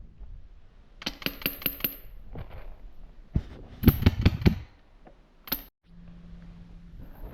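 Paintball marker firing in quick strings of sharp pops: about five shots in a second, a second string of four or five shots a couple of seconds later, then a single shot.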